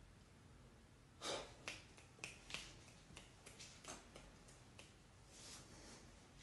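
Faint finger snapping: about a dozen quick, unevenly spaced snaps, the first the loudest, followed by a soft hiss.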